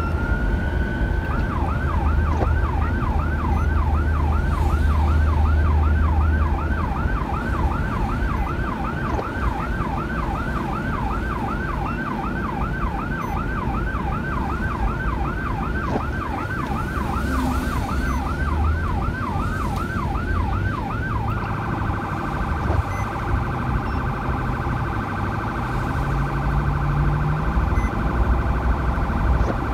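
Police car siren: a rising wail runs straight into a fast yelp, about three sweeps a second, then switches about two-thirds of the way through to a much faster warble. Underneath is the low drone of the vehicle's engine and tyres.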